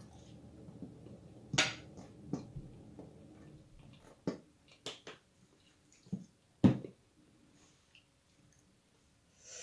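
Tableware handling at a dining table: a few scattered light knocks and clicks as a plastic squeeze bottle of sauce is used over a plate and food is picked from it, the loudest knock about seven seconds in.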